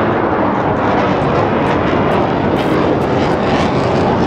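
Airbus A400M Atlas's four TP400 turboprop engines running loud and steady as the transport flies a low pass overhead.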